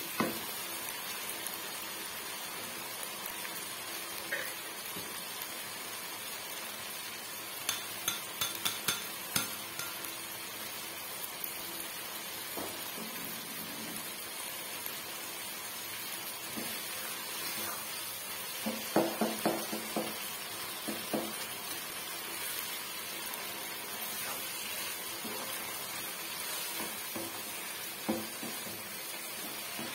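Chopped vegetables frying in oil in a nonstick wok, a steady sizzling hiss. A wooden spoon stirs and knocks against the pan in short clusters about a third of the way in, again about two-thirds of the way in, and once near the end.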